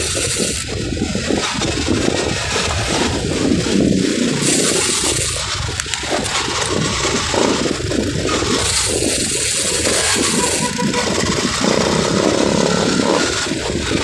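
Wind buffeting a handlebar-mounted phone's microphone on a moving bicycle: a loud, uneven rumble, with a high hiss that comes and goes three times.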